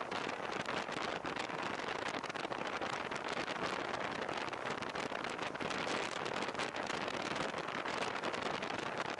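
Steady rush of wind and tyre noise from a moving motorcycle on a wet road, picked up by an action camera's microphone, with dense fine crackling over it.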